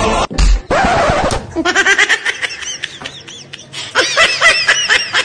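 Laughter in rapid, high-pitched bursts of short repeated 'ha' pulses, most of all about four seconds in. A short thump comes just before it, near the start.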